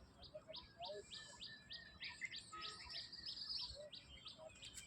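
Birds chirping faintly: a quick run of repeated high chirps, about four or five a second, for the first few seconds, with other scattered bird calls mixed in.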